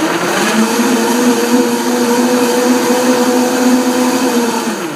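Countertop blender running at a steady speed, blending a mango and spinach smoothie; the motor stops just before the end.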